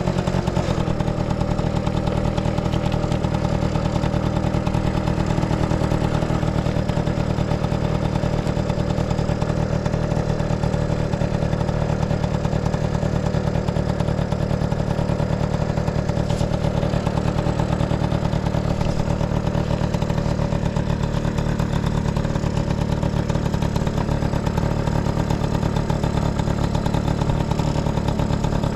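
Honda Motocompo AB12's 49cc two-stroke single-cylinder engine idling steadily, settling slightly lower in pitch about half a second in. It runs evenly with no abnormal noise.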